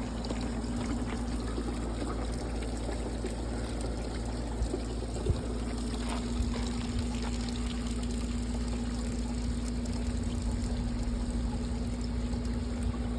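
Air-conditioner condensate water pouring steadily from the drain line into a full rain barrel. A steady low hum comes in about six seconds in.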